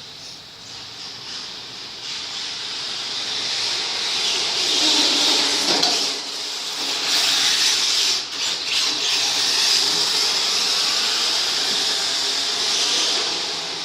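Radio-controlled Mk2 Escort model car running across a car park, a loud hissing whine of motor and tyres. It builds a few seconds in, dips briefly twice, then holds steady.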